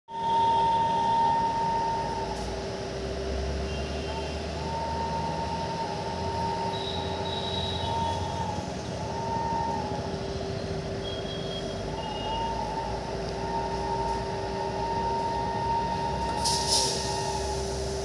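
Steady electric hum from an electric locomotive's machinery over a low rumble, one low tone held throughout and a higher tone that breaks off and resumes every few seconds. A short sharp noise comes near the end.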